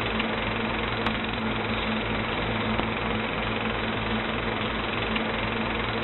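A steady mechanical noise with a low hum, unchanging throughout.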